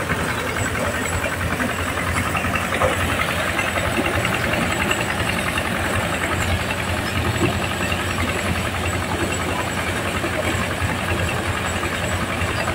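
Single-cylinder diesel engine running steadily as it drives a corn sheller, with the continuous rattle and hiss of corn cobs being threshed in the drum as a sack of ears is fed into the hopper.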